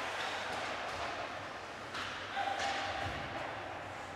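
Ice hockey play echoing in an indoor rink: several sharp knocks, typical of puck and sticks striking the boards and ice, over a steady rink hum.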